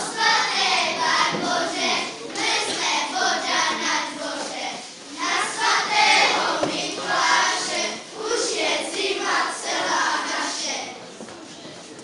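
A group of children singing a song together, stopping near the end.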